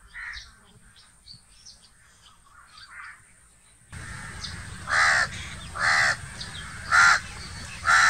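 House crow cawing: four loud caws about a second apart in the second half, the last just as the bird opens its beak wide. Before them, only faint bird chirps.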